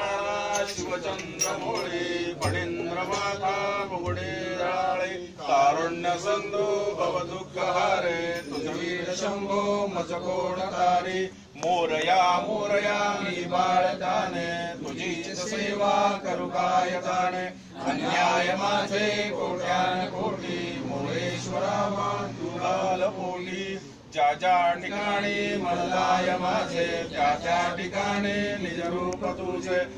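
Male voices chanting a Hindu devotional prayer in a rhythmic sing-song, with a few brief breaks.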